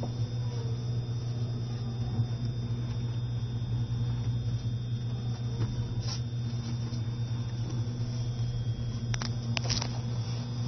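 Steady low hum inside the carriage of a JR East E653 series electric train running very slowly, held to about 20 km/h by a strong-wind speed restriction. A few short clicks come about nine seconds in.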